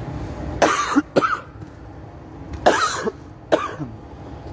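A person coughing: two pairs of short, loud coughs, about two seconds apart.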